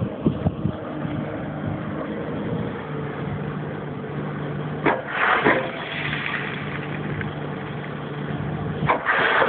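Komatsu PC340LC excavator's diesel engine running steadily, with a sharp knock and a brief rattle about halfway through and again near the end.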